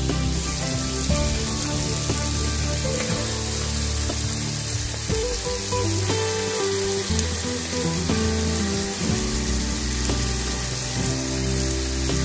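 Snail meat and onions sizzling steadily as they stir-fry in hot oil in a wok, under background music with held low notes.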